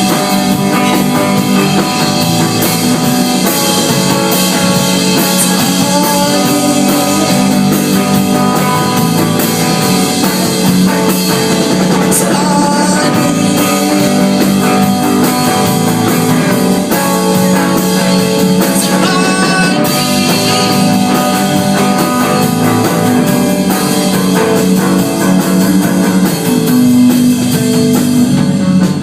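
Live band playing an instrumental passage of a rock song, with guitar and drum kit.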